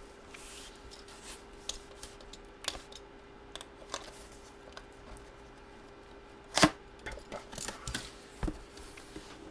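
Hands opening and handling cardboard packaging: scattered clicks, taps and scrapes, with one louder knock about two-thirds of the way through. A faint steady hum runs underneath.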